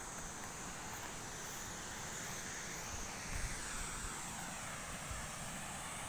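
Outdoor ambience: wind rumbling on the microphone over a steady high hiss, with a distant engine passing in the middle, its pitch falling.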